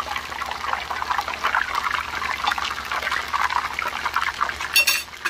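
Food deep-frying in a wok of hot bubbling oil: a dense, steady sizzle made of countless tiny crackles. A brief sharp click rings out near the end.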